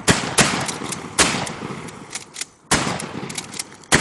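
A DP-12 12-gauge pump shotgun firing light target loads: about five shots in four seconds, each ringing out, with smaller clicks between them.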